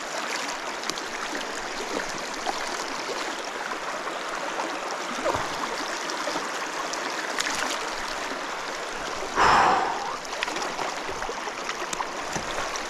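Steady rush of a fast river running over rocks. About nine and a half seconds in there is a short, louder splash as the landing net holding the sea trout is dipped into the water to release the fish.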